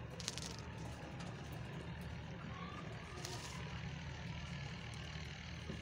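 A steady low mechanical rumble like a vehicle engine running, with two brief rustles of a woven feed sack as rabbits push their heads into it, about a quarter second in and about three seconds in.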